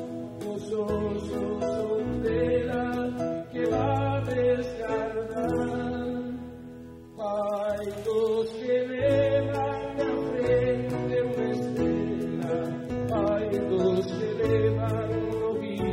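Male voice singing a slow ballad in Galician, live into a microphone, with acoustic guitar accompaniment. The voice breaks off briefly a little before halfway, then carries on.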